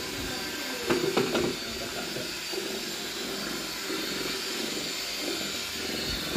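A steady mechanical whir and hiss, like a running machine or power tool, with a few brief louder sounds about a second in.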